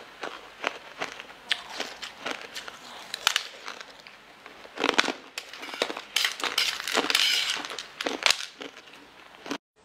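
Close-miked chewing of button-shaped gummy candies: a run of wet, crackly clicks and squishes, busiest from about five to seven and a half seconds in. It cuts off suddenly near the end.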